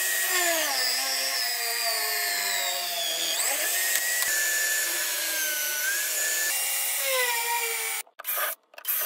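Electric drill mounted in a drill-press stand, running at high speed and boring into a wooden board. Its whine sags in pitch as the bit bites into the wood and climbs back as the load eases. It cuts off abruptly near the end, followed by two short bursts of the same sound.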